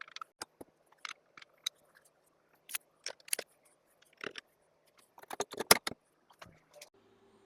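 Bolts and hand tools clinking against metal while bolts are fitted into a skid steer's hydraulic control valve block: scattered sharp clicks, then a quick run of clicks about five seconds in.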